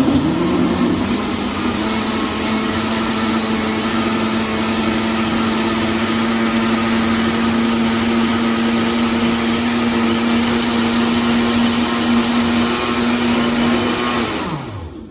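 Hamilton Beach Wave Crusher 700-watt blender running a fruit, spinach and yogurt smoothie in its glass jar on the smoothie program. The motor starts abruptly, runs at a steady pitch for about fourteen seconds, then winds down with falling pitch as the program comes to an end.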